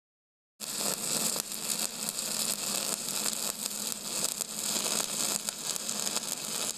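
TIG welding arc crackling and hissing steadily over a low buzz. It starts abruptly about half a second in.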